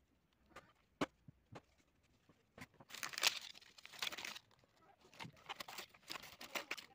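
Plastic packaging and a flat product sachet crinkling and rustling as they are handled and unpacked. There are a few light taps in the first two seconds, then bouts of crinkling from about three seconds in.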